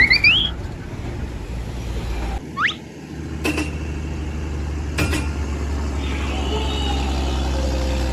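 A large road vehicle's engine, likely a truck's, running with a steady low rumble. About two and a half seconds in there is a short rising whistle, followed by two sharp clicks.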